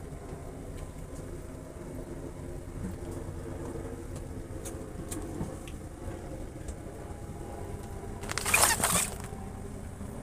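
A boat engine running with a steady low hum. About eight seconds in, a loud rush of noise lasts under a second.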